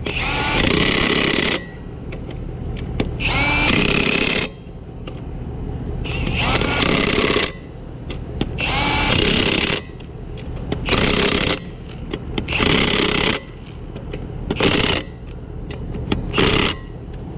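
Impact wrench run in about eight short bursts, tightening the lug nuts on a spare wheel. The bursts get shorter toward the end as the nuts seat.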